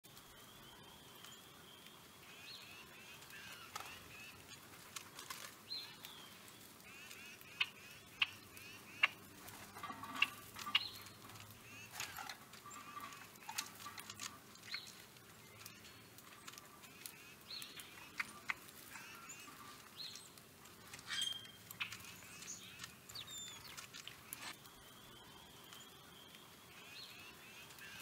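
Wild birds chirping and calling throughout, with scattered sharp clicks, the loudest of them between about eight and eleven seconds in.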